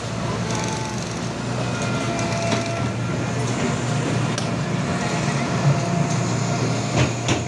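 Track laying machine running: a steady mechanical hum with a thin high whine over it and a few sharp metallic clanks, two close together near the end.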